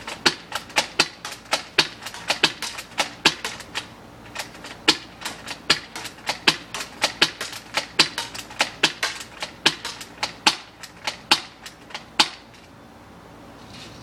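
A long run of sharp, irregular clicks, about four or five a second, that stops about twelve seconds in.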